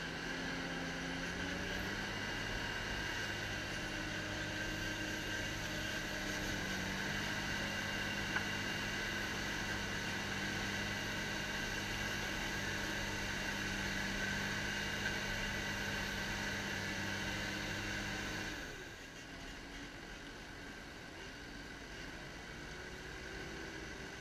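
Ponsse Ergo harvester's diesel engine running at high revs with a steady high whine on top, its pitch rising about a second in as it revs up. Near the end the sound drops suddenly to a quieter, lower engine hum.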